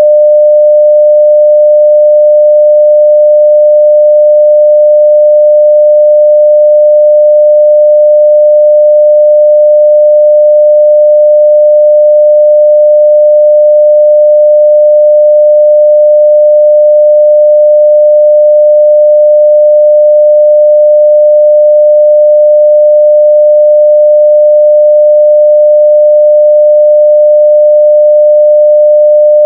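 Steady 600 Hz sine-wave test tone at full level, one pure pitch held without change.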